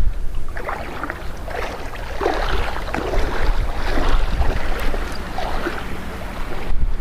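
Wind buffeting the microphone over splashing, washing water.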